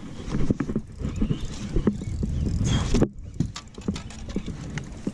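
Irregular knocks and thumps on a bass boat as a hooked fish is netted and brought aboard, over a low steady rumble; the knocking grows busier and then drops off suddenly about three seconds in.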